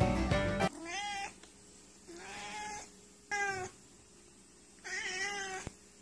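Background music cuts off just under a second in, then a domestic tabby cat meows four times, each meow a short call that rises and falls in pitch, with pauses between.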